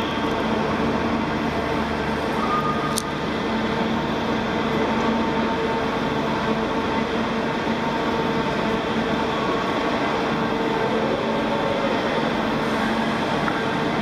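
Giant mechanical elephant's machinery running with a steady drone and hum, like a train engine idling.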